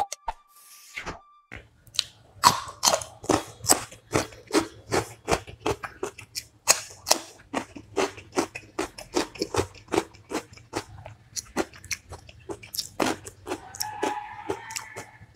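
Close-miked chewing and crunchy biting of food, several wet clicks and crunches a second, as a person eats a meal of chicken curry with rice. A short tune fades out in the first second.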